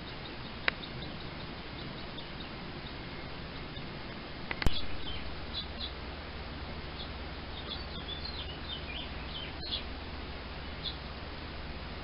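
Nestling birds cheeping in short, high chirps, scattered at first and thickest about two-thirds of the way in, over a steady background hiss. A sharp knock about four and a half seconds in is the loudest sound, and a smaller click comes near the start.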